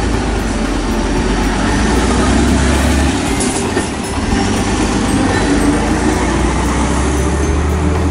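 Diesel engine of a city route bus driving off past the camera, a loud, steady low drone. The engine note changes about three seconds in, and a brief hiss follows.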